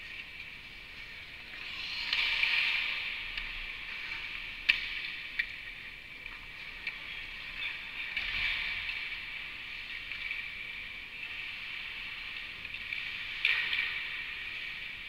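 Ice-hockey skate blades hissing and scraping on rink ice, swelling three times as skaters cut and stop. A few sharp single clacks of sticks and puck stand out, the loudest about five seconds in.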